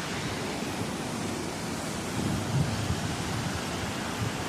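Steady rushing noise of water pouring through a dam.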